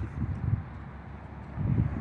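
Wind buffeting the microphone in uneven low gusts over the rumble of highway traffic, with two stronger gusts, about half a second in and near the end.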